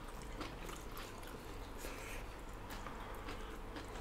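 Faint chewing and soft mouth sounds of people eating rice and smoked pork with their hands, with a few light clicks from fingers working the food on plates.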